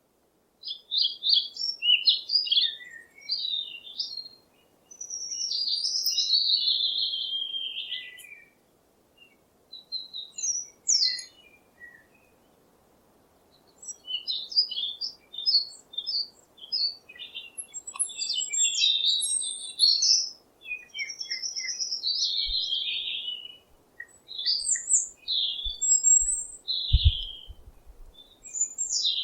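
A songbird singing in varied high phrases with short pauses: quick chirpy bursts mixed with longer falling phrases. A few low thumps come in near the end.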